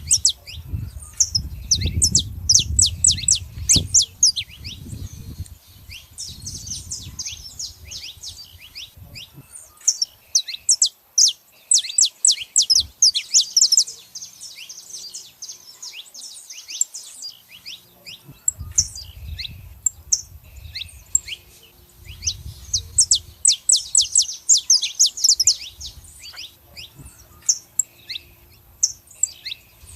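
Saffron finches calling in fast runs of sharp, high, downward-slurred chirps, coming in bouts a few seconds long. A low rumble sits beneath them at the start and again in the second half.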